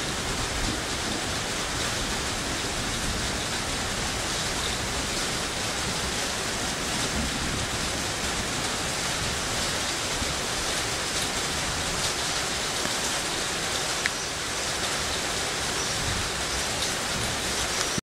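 Steady rain falling: an even, unbroken hiss.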